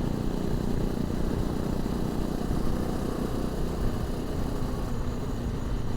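A 250 cc single-cylinder motorcycle engine running steadily while riding, with wind rush, heard through a lavalier mic inside a crash helmet.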